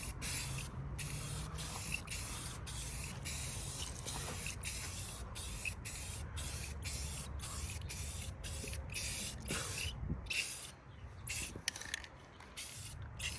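Aerosol can of black spray paint hissing in short bursts in quick succession while a coat is sprayed on; about ten seconds in the bursts become shorter and sparser.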